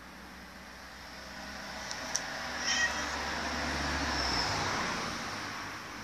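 A domestic cat gives a short, high meow a little under halfway through, over a passing vehicle that swells and then fades away.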